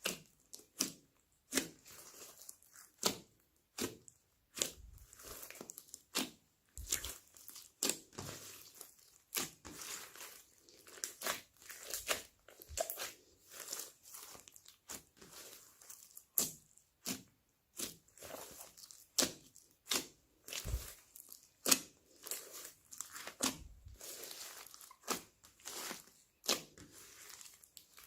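Slime being kneaded and stretched by hand, giving irregular sharp clicks and pops about once or twice a second, with faint crackling between them.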